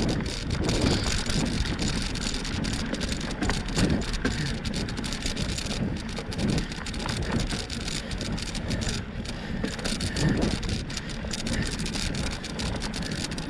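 Wind buffeting the microphone while a bike rides along a dirt trail, its tyres rolling and crackling over the ground.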